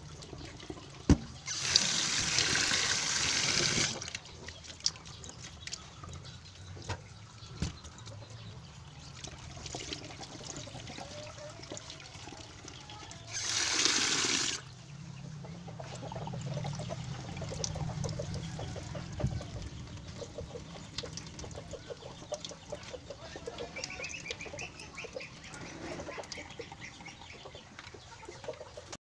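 Water splashing into a metal bowl of mung beans at a stainless steel sink in two bursts, one of about two and a half seconds near the start and a shorter one about halfway through. Between them come scattered light knocks and the quieter sounds of hands working the wet beans.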